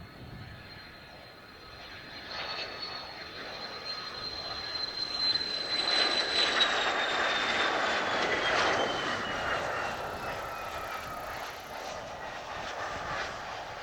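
Mitsubishi F-2 fighter going past, its single F110 turbofan's whine swelling to a peak about halfway and then falling steadily in pitch as it moves away.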